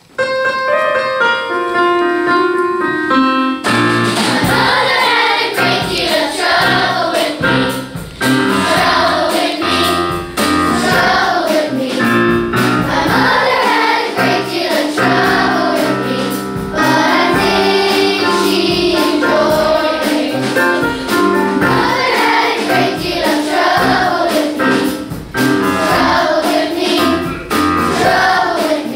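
Children's choir singing with instrumental accompaniment. The accompaniment plays a short introduction alone, and the voices come in about three and a half seconds in.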